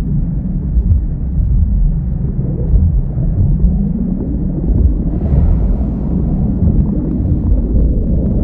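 Loud, steady low rumble, with a brief swell of hiss about five seconds in.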